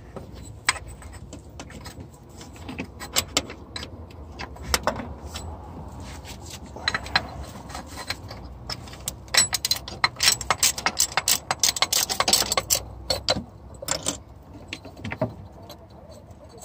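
Metal tools and parts clinking and clattering in irregular sharp clicks, with a dense run of rapid clinks about nine to thirteen seconds in.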